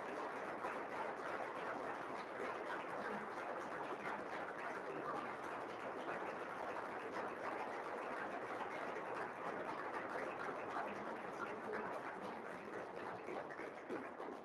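Audience applauding: a dense, steady clatter of many hands clapping that begins to thin out near the end.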